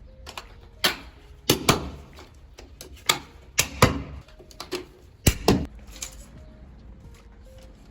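A series of sharp, irregular knocks and clicks, about nine in the first six seconds, some in close pairs.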